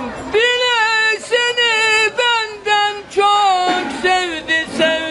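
An elderly man singing a Turkish love song unaccompanied, in a high voice. He draws out long, wavering notes, with brief pauses for breath.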